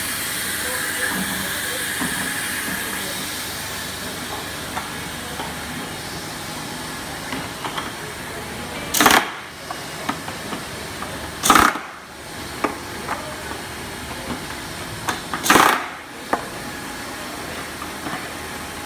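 A pneumatic jerrycan filling machine running with a steady hiss and light clicks. Three short, sharp bursts of air hiss follow, a few seconds apart, as its pneumatic valves exhaust.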